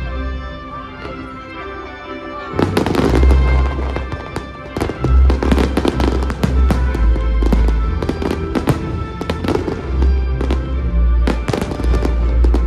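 Fireworks going off over music. After a quieter two seconds, a dense run of deep booms and sharp crackling bangs begins and keeps going.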